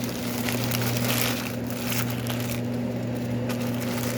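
Plastic food packaging being handled, crinkling and clicking for about two and a half seconds, over a steady low electrical hum.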